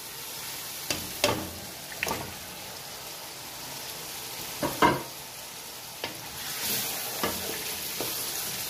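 Korma masala sizzling in hot oil in an aluminium pot as chicken pieces go in and a wooden spoon stirs, with several sharp knocks and clatters against the pot. The sizzling grows louder from about two-thirds of the way through.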